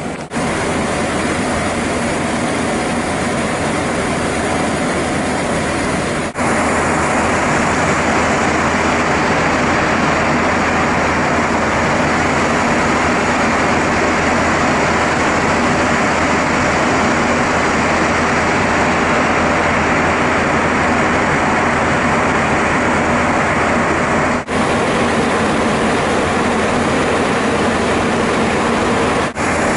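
Boeing 737-800 flight-deck noise in the climb: a steady rush of air over the cockpit and engine noise, with a low steady hum underneath. It drops out for a moment three times, about six, twenty-four and twenty-nine seconds in.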